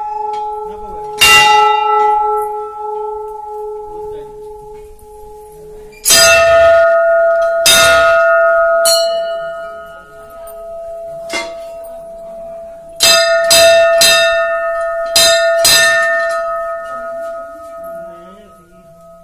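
Hindu temple bells being rung by hand: a lower-pitched bell struck once about a second in and left ringing, then a higher-pitched bell struck about eight times in uneven strokes from about six seconds on, each stroke ringing on and slowly dying away.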